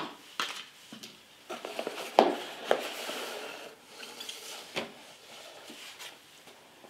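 Handling noises as fabric grill gloves are lifted out of a cardboard box: rustling with several light knocks of cardboard and hands on a wooden tabletop.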